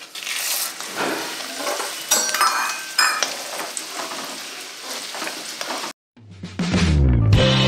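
Dried red chillies, urad dal and chana dal sizzling in hot oil in an aluminium kadai, stirred with a perforated metal ladle. About six seconds in the sizzle cuts off and background music begins.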